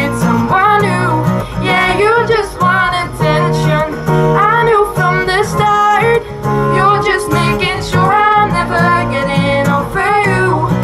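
Live amplified song: female vocals held and bent in long sung phrases over strummed acoustic guitar.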